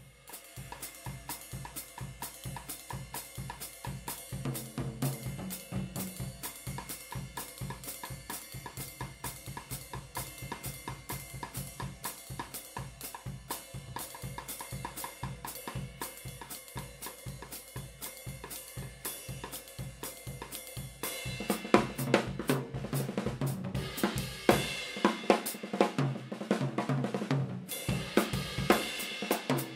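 Drum kit played in a solo improvisation: a steady groove of kick drum, snare and hi-hat on Spizz hi-hats and a Sabian HHX cymbal. About two-thirds of the way in the playing turns louder and busier, with heavier cymbal strokes.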